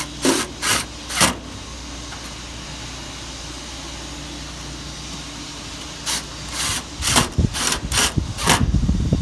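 Cordless drill driving self-drilling screws into the sheet-metal body of a Masterbuilt smoker. A few clicks and knocks come first, then the drill runs in uneven spurts from about seven seconds in, over a steady low hum.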